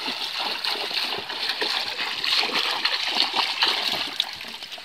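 Water splashing as feet wade through shallow, muddy water, an irregular run of splashes.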